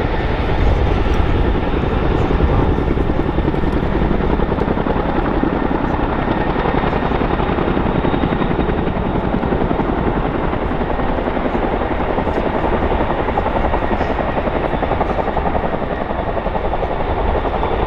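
Boeing CH-47 Chinook tandem-rotor helicopter flying low: rapid, even blade chop from its two rotors over the drone of its turbines, loud and steady throughout.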